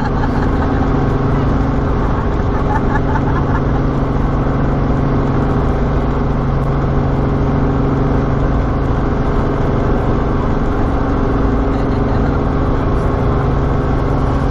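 Robinson R44 helicopter's six-cylinder Lycoming piston engine and rotors running steadily, heard from inside the cabin.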